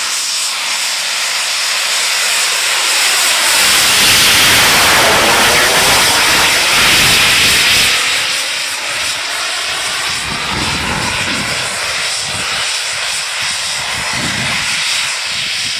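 Backpack rocket belt firing continuously in flight: a loud, steady jet hiss, loudest about four to eight seconds in, then easing slightly.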